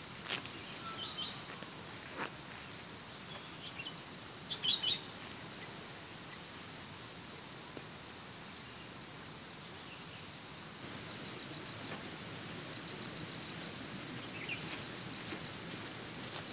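A steady high-pitched drone of insects, like a cricket chorus, with a few short bird chirps: one about a second in, a louder cluster around five seconds, and one near the end.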